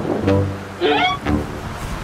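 Background music: held melody notes over a bass line.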